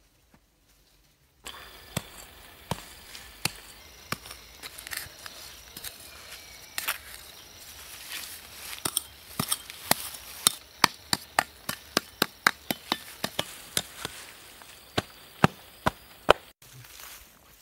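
Small hand trowel digging into dry, loose soil: a run of sharp chopping strikes that starts suddenly about a second and a half in, sparse at first, then coming two or three a second through the middle.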